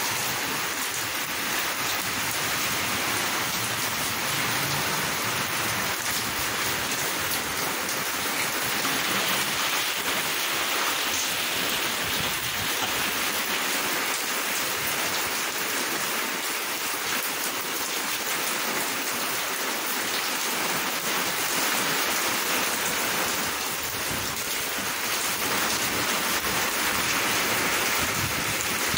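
Steady rain falling during a thunderstorm, a constant even patter with no thunder heard.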